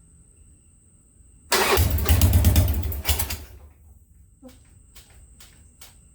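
Harley-Davidson Sportster V-twin engine being cranked on the starter after a top-end rebuild, firing for about two seconds before dying out. A few faint clicks follow near the end.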